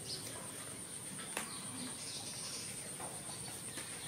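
Steady high-pitched drone of insects in the background, with a sharp click about a second and a half in and a few soft ticks and rustles as a disposable diaper is fastened on a baby monkey.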